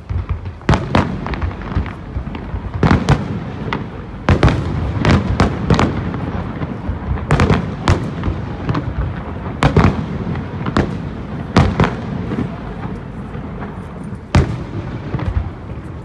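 Aerial fireworks going off in a rapid, irregular barrage: loud sharp bangs, some in quick clusters, over a continuous rumble of shell bursts and crackle.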